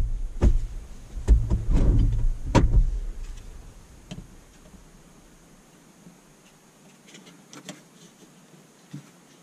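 Thumps, knocks and rustling from someone shifting about in a pickup cab during the first three seconds, then quiet with a few faint plastic clicks as a plastic trim-removal pry tool works at a GoPro adhesive mount on the windshield.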